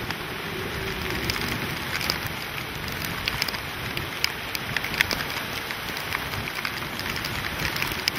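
Hurricane wind driving rain and sea spray: a steady rushing noise, with many sharp ticks of drops striking close to the microphone.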